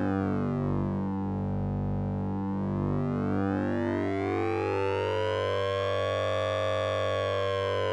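Synthesizer sound effect built on oscillator sync and ring modulation: a steady low electronic drone with a siren-like sweep in its upper tones, which glide down to a low point about two seconds in and then rise slowly again to a peak near the end.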